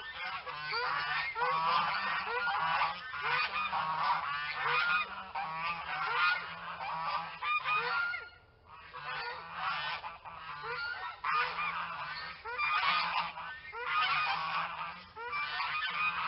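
Several geese honking, their calls overlapping almost without a break, with a short lull about eight seconds in.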